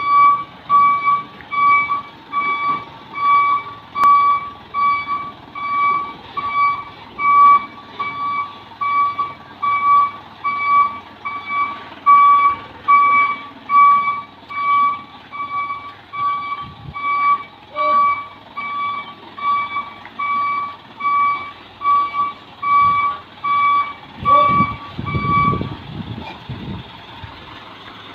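Truck's reversing alarm beeping evenly, one high tone about three times every two seconds, over the truck's low engine. The beeping stops near the end, just after a short low rumble.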